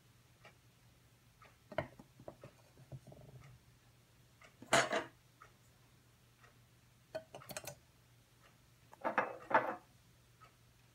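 Clinks and knocks of a Scentsy warmer's glass-mosaic shade and metal parts being handled and set onto the base, in several short clusters of clatter, loudest about five seconds in and again near the end.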